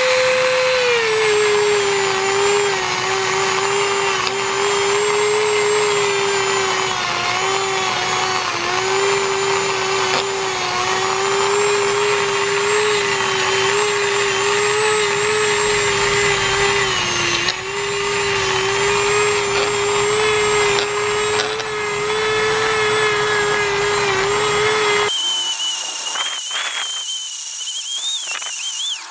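Handheld rotary tool running at high speed as its small wheel grinds rust off a steel ball. Its motor whine drops in pitch about a second in and wavers under load. Near the end the sound turns thinner and higher-pitched.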